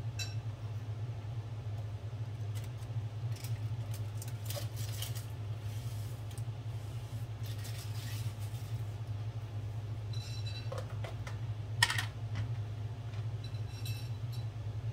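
Light scattered clicks and clatter of food and containers being handled at a kitchen counter and sink, over a steady low hum, with one sharper click about three-quarters of the way through.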